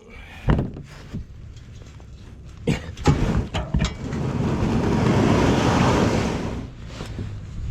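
Plastic kayak hull being pushed across lake ice: a few sharp knocks, then a long scraping slide in the second half that rises and fades.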